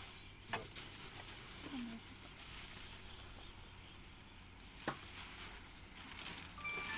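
Food being served at a stall: a low background of handling noise with two sharp clicks, typical of a serving spoon or tongs striking steel pans, and a faint rustle of plastic bags.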